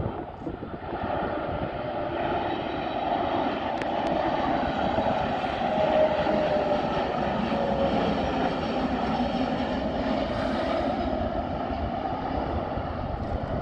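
Boeing 737 MAX jetliner landing, its CFM LEAP-1B turbofans running at approach power. The noise builds from about a second in, is loudest around the middle with a faint falling whine as the jet passes, and stays steady afterwards.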